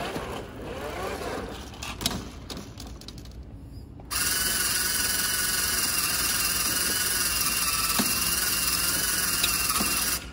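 Electric motor driving an FRC robot's ball intake rollers and belts, starting about four seconds in and running steadily with a high whine. Before that come lighter rattles and a knock.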